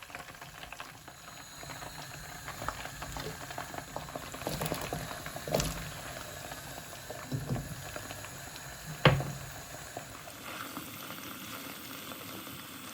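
Butternut squash pieces sizzling and crackling as they fry in hot oil in a pan, with a few knocks, the loudest about nine seconds in.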